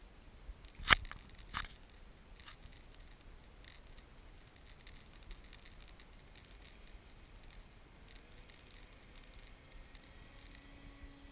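Two sharp knocks about a second in, half a second apart, then faint scattered ticks. Near the end the faint steady hum of the radio-controlled Cessna 185 floatplane's motor begins to come in.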